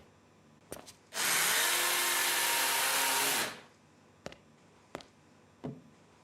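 Cordless vacuum cleaner motor switched on, running for about two and a half seconds, then winding down as it is switched off. A few sharp clicks come before and after.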